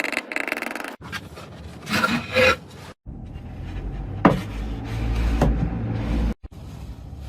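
Hand-tool work on wood: rubbing and filing strokes, in short clips cut together, with a low steady hum under the middle part.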